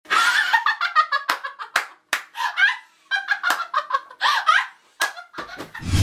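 A young woman laughing loudly in bursts, with several sharp smacks in between. A low hum comes in near the end.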